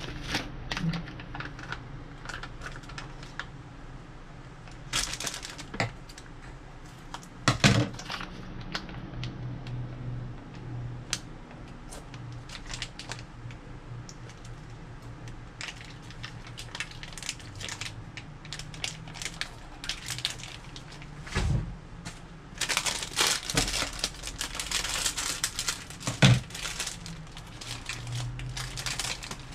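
Small clear plastic cups being handled on a granite countertop: scattered light clicks and knocks of plastic, with a few seconds of crinkling plastic packaging toward the end.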